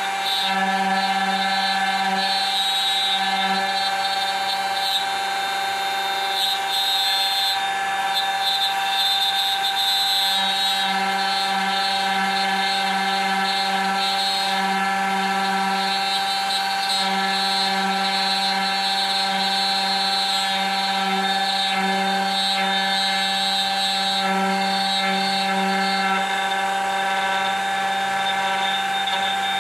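Small electric router running at speed, its fine bit cutting a groove into a pine board: a steady high whine, with a lower hum that comes and goes.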